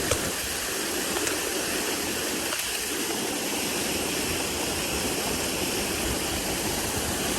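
A waterfall about 70 feet high: a steady, even rush of falling water.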